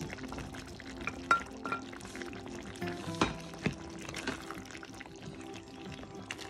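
Background music with soft kitchen sounds beneath it: bell pepper pieces tipped from a bowl into a pan of simmering pork stew. There are a few sharp clicks, about a second in and twice around three seconds in.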